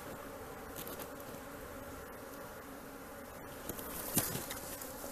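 Honey bee swarm humming steadily, the mass of bees clustered rather than flying. A sharp knock sounds about four seconds in.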